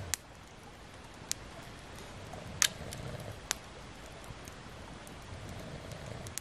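Campfire crackling: four sharp pops, the loudest about two and a half seconds in, and a few fainter ticks over a low steady background.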